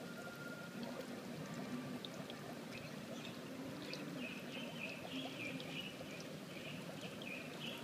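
Steady trickling, pouring water, with faint high-pitched chirps over it from about halfway through.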